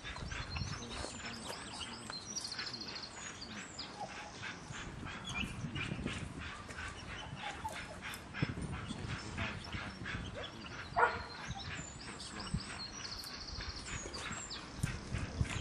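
A working spaniel whining and giving short yips and barks while it searches, with one sharper bark about eleven seconds in.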